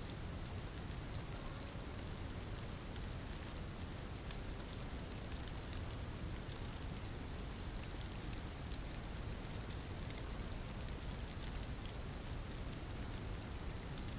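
Steady rainfall: an even hiss packed with small, close drop ticks over a deep, steady undertone.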